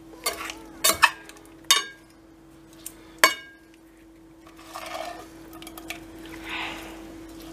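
Metal spatula stirring fried liver cubes and potatoes in a glass bowl. Several sharp clinks of metal on glass come in the first three and a half seconds, then softer scraping and stirring, over a steady low hum.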